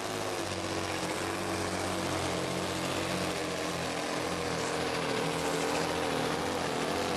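Volvo FH pulling truck's 16-litre diesel engine running flat out under full load as it drags the pulling sled. It makes a steady, dense drone whose pitch sags slightly partway through.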